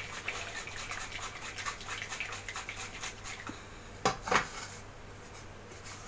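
Steel mixer-grinder jar with its plastic lid on, shaken by hand with a little water inside to rinse out the chutney: a run of small rattles and clicks. About four seconds in come two louder knocks as the jar is handled and the lid is opened.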